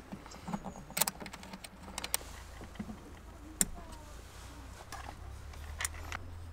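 Light clicks and taps of hands working the threaded metal cable connector and panel of a Webasto heater box, spaced irregularly, over a low hum that grows stronger about five seconds in.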